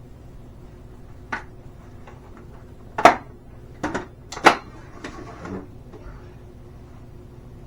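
Hard objects knocked, clattered and set down while rummaging through stored items, a handful of sharp knocks with the loudest about three seconds in and another about a second and a half later, over a faint steady hum.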